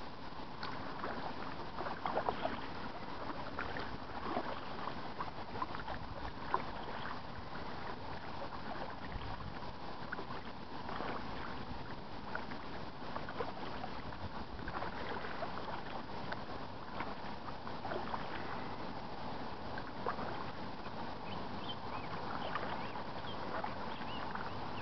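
Kayak paddle dipping into calm river water stroke after stroke, with irregular small splashes and drips and a few louder splashes in the first seconds.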